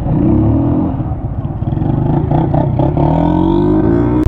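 Motorcycle engine accelerating in gears, its pitch climbing near the start and again in the second half.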